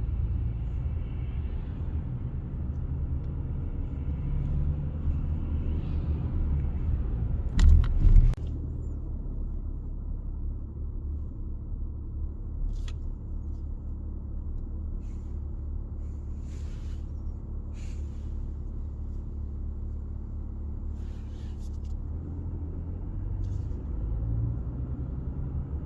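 Steady low rumble in the cabin of a Mazda CX-60 XD diesel moving slowly, with a brief loud knock about eight seconds in and a few faint clicks later.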